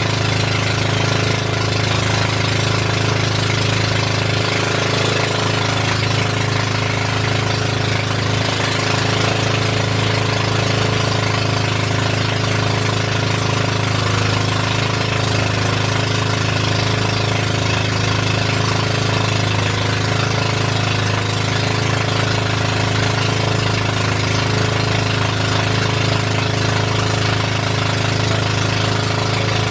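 A boat's engine running steadily at a constant speed: an unchanging low drone with a steady hiss above it.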